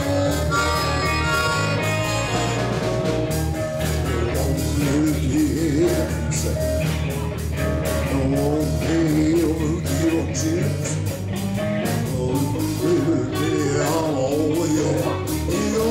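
Live blues-rock band playing: electric guitars and drums, with a wavering lead line from a harmonica played into the vocal microphone.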